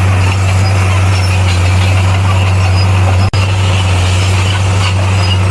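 Heavy diesel earthmoving machine engine running steadily with a strong low hum, broken by an instant's dropout a little past halfway.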